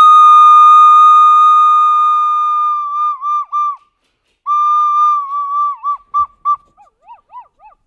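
Plastic soprano recorder blown by a golden retriever: one long, high, steady note that wavers and dips in pitch near its end. After a short break comes a second, shorter wavering note, then a string of short, fainter toots.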